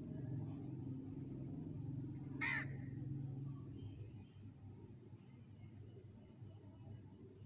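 A bird gives one loud, harsh call about two and a half seconds in. A small bird repeats a short high chirp about every second and a half, over a low background rumble that fades about four seconds in.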